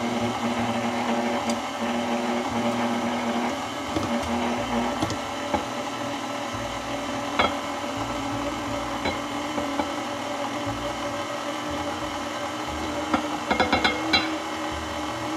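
KitchenAid Classic stand mixer running steadily at low speed, its flat beater turning through cookie batter while flour is added. A few sharp clicks are heard, with a quick run of them near the end.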